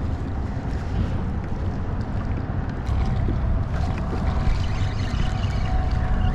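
Wind buffeting the head-mounted camera's microphone, a steady low rumble, with water lapping at the kayak hull. A faint steady hum joins about three seconds in.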